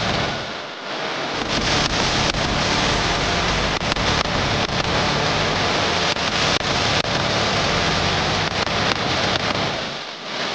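Dense, steady hall noise from a group of barefoot children moving on foam mats, with many short knocks from feet striking the mats scattered through it.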